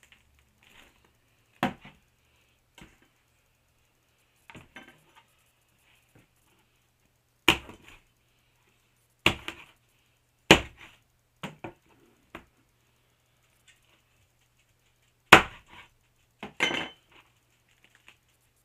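Sharp knocks of a meat cleaver striking a plastic cutting board while rabbits are dressed: about six loud strikes at uneven intervals, with softer taps and clicks between them.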